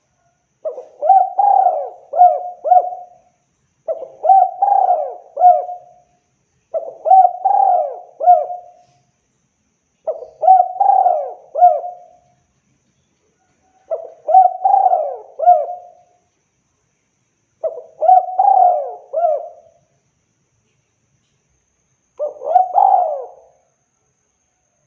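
Spotted dove (tekukur) cooing: seven repeated phrases of several coos each, roughly one every three and a half seconds, with silence between phrases.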